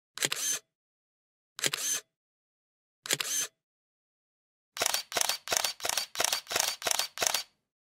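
Single-lens reflex camera shutter clicking three single shots about a second and a half apart, then a rapid burst of about ten frames at about four a second, like continuous shooting.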